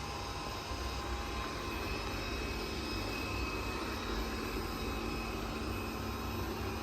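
Roborock Qrevo 5AE robot vacuum running: a steady whir with a low hum and faint steady high whines, its replacement left wheel working normally.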